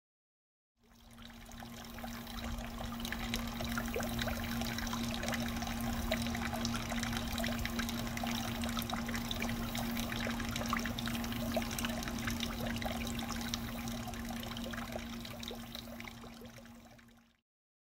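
Water trickling and splashing into a garden pond, a steady patter of small drops with a steady low hum underneath. It fades in about a second in and fades out near the end.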